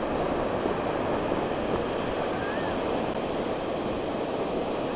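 Ocean surf breaking and washing up the shore, a steady rushing noise.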